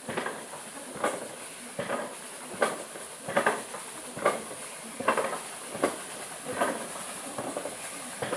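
A steady rhythm of clacking knocks, a little over one a second, over a faint steady hiss.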